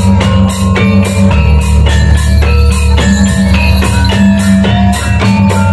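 Loud gamelan dance music played through a sound system: a quick, steady drum beat with ringing metallophone notes over a heavy bass.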